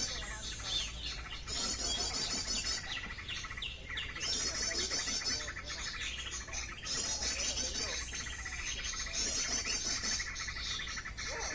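Bird song: high, rapid trilled phrases about a second and a half long, repeating again and again with short gaps, over a lower run of quick chirps.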